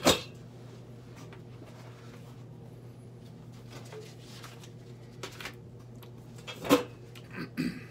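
A hardcover book being opened and its pages turned: soft paper rustles and light handling knocks, with a sharp click right at the start and another short sharp sound about a second before the end, over a steady low hum.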